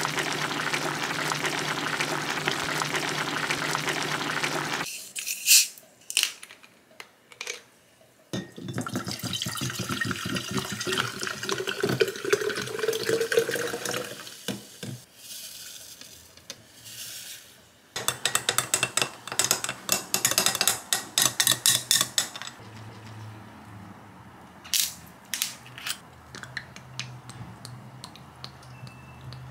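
A pot of stew bubbling at a boil, then sparkling water poured into a glass pitcher, the pitch of the pour rising as it fills, followed by fizzing. Near the end a spoon clinks rapidly against the glass as the drink is stirred.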